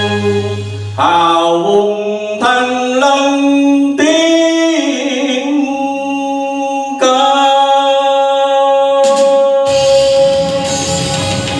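A male singer sings a Vietnamese song through a microphone with instrumental accompaniment, moving through several wavering notes and then holding one long note; near the end the accompaniment fills in more strongly underneath.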